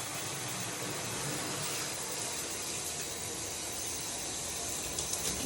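A new filtered shower head spraying a steady stream of water.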